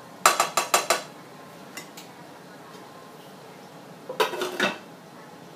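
A spatula striking a frying pan in a quick run of about five clanks, then a couple of small clicks. About four seconds in, a glass pan lid clatters and clinks as it is set onto the pan.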